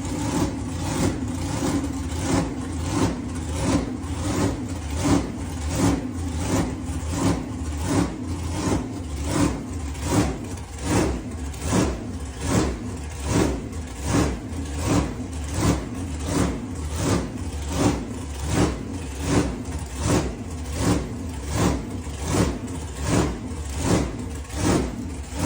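Supercharged big-block Chevy V8 idling with a regular surge, its sound swelling and falling a little faster than once a second: the blower surge of a blown engine at idle.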